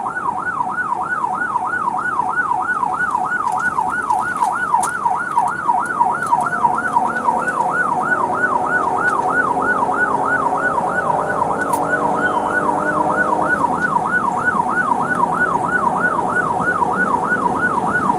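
Police car siren on its fast yelp setting, its pitch sweeping up and down about three to four times a second without a break, with lower steady tones underneath in the middle.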